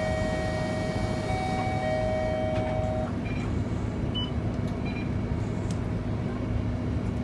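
Scania K230UB single-deck bus's 9-litre five-cylinder diesel engine and drivetrain running steadily under way, heard from inside the passenger cabin. A steady high whine sits over the engine noise for about the first three seconds.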